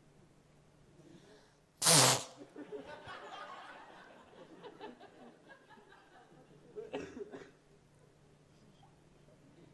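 A short, loud outburst about two seconds in, then audience laughter for a few seconds, with a second short swell of laughter about seven seconds in.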